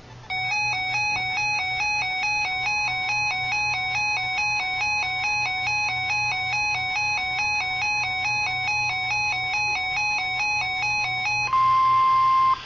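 Weather radio alert alarm: a fast, shrill two-tone electronic beep alternating about four times a second for around eleven seconds. It stops near the end, leaving the steady 1050 Hz NOAA Weather Radio warning tone alone for about a second, the signal that a warning message follows.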